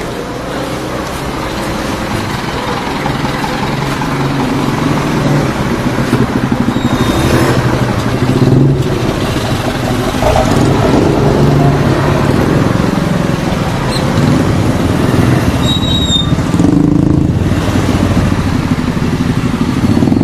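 A motor vehicle's engine running on the move, its pitch shifting up and down, under a steady haze of wind and road noise, picked up by an action camera's built-in microphone. It grows louder over the first several seconds.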